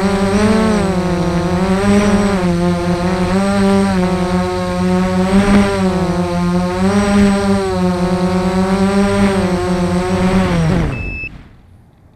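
FPV racing quadcopter's electric motors and propellers whining close to the microphone, the pitch rising and falling with the throttle. About eleven seconds in, the whine drops in pitch and stops as the quad lands and the motors are disarmed, followed by a short electronic beep.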